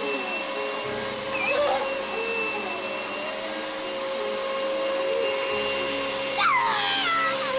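Vacuum cleaner running steadily: a constant motor hum with a high whine over an even rush of air.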